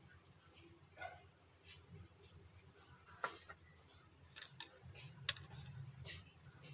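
Faint scattered clicks and light scrapes of a screwdriver and copper wire against the plastic bodies and screw terminals of two-way light switches as wires are fitted to the terminals; the sharpest clicks come about three and five seconds in.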